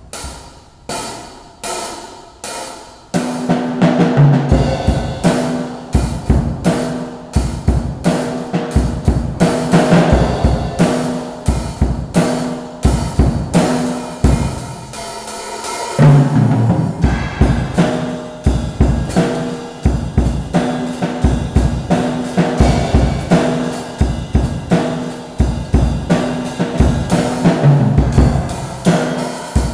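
Acoustic drum kit played in an improvised solo groove. A few separate hits at first give way to a steady beat on drums and cymbals about three seconds in. Around the middle the playing thins out briefly, then a loud hit brings back the full beat.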